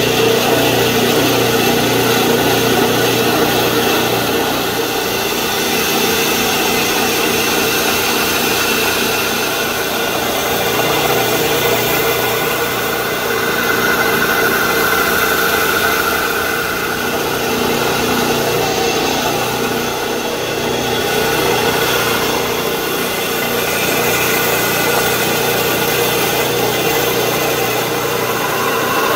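Small band saw running steadily and cutting through a hardwood block, its sound swelling a little as each cut goes through the wood.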